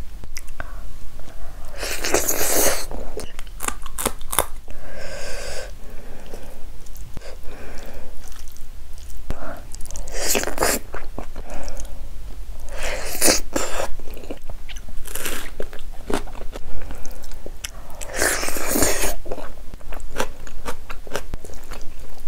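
Close-miked eating sounds of a handful of palak paneer and rice being eaten by hand: wet chewing and mouth clicks, with several louder crunchy bites spaced through.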